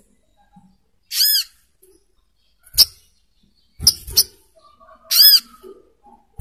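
Sogok ontong bird calling: two harsh, arched call notes about four seconds apart. Between them come three sharp knocks, each with a short high chirp.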